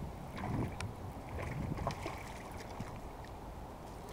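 Wind buffeting the microphone at the edge of a rippling pond, with small waves lapping at the bank and a few faint ticks.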